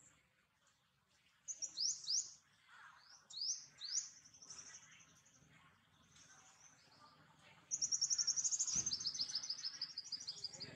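Birds calling: a few quick, high chirps that sweep down in pitch, then about three seconds in from the end a loud, rapid trill of high notes that steps down in pitch.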